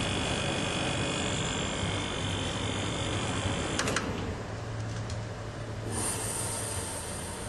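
Fujitsu window air conditioner running, its fan and rotary compressor giving a steady noise with a high whine. About four seconds in, a few sharp clicks come as the control is switched, and the whine stops and the running sound drops lower.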